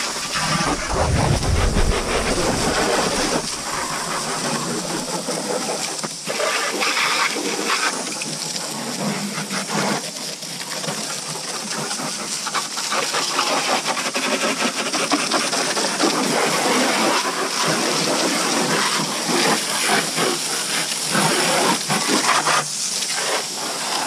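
Pressure washer jet spraying water onto a muddy ATV's bodywork and underside: a steady hiss of spray that shifts a little as the jet moves over different surfaces.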